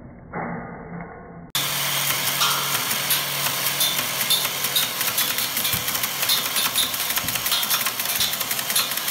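A motor-driven CD gun running and firing compact discs in rapid succession, with the discs clattering and cracking against aluminum truss. The loud, dense run of sharp impacts over a steady motor hum starts suddenly about a second and a half in, after a quieter, muffled stretch.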